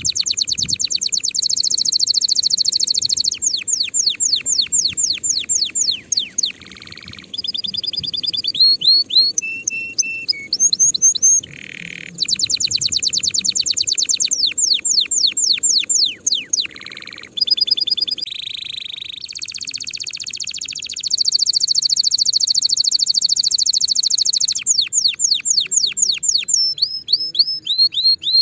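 Domestic canary singing a long, loud song of very fast rolling trills, runs of quick falling whistled notes and a few short, lower rasping phrases, with brief breaks between tours.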